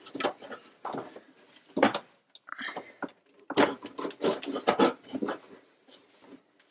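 Irregular clicks, knocks and clatter of hands and tools working at the car's bumper, in uneven clusters with no motor running.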